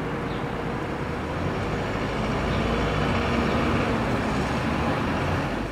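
City road traffic: a steady rumble of passing cars and buses with an engine hum, growing a little louder after about a second and a half.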